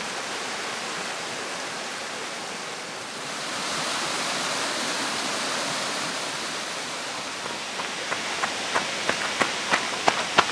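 Steady rush of a fast-flowing beck, swelling a little a few seconds in. Near the end, footsteps on a stony track come in at about three a second as a runner approaches.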